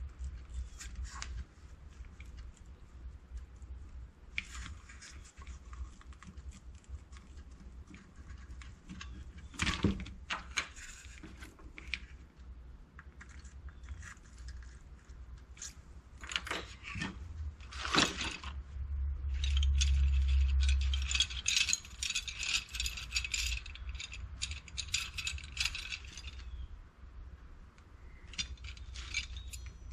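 Plastic wiring-harness connector shell being handled and pried at with a small metal pin-release tool, trying to free its retaining tabs. Scattered clicks and taps, then a longer stretch of dense scraping and rattling about two-thirds of the way through.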